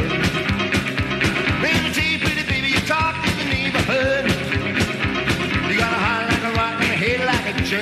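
Rock and roll music with a steady beat.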